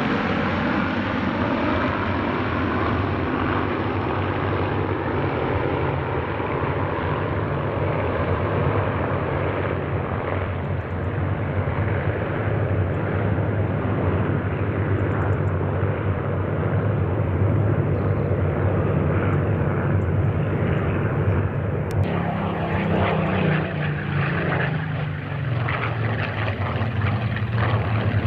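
Massed piston V12 engines of a formation of Spitfires and Hurricanes flying over, giving a dense, steady propeller drone. About three-quarters of the way through, the sound changes suddenly to a single Spitfire passing close, its engine note falling as it goes by.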